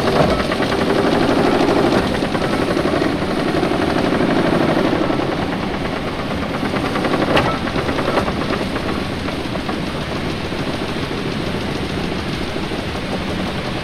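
A 1911 marine-type triple-expansion steam engine being started by its donkey engine, a small auxiliary steam engine. The machinery runs with a rapid, even mechanical beat that is busiest for the first few seconds, then settles a little. Two sharp knocks come about halfway through.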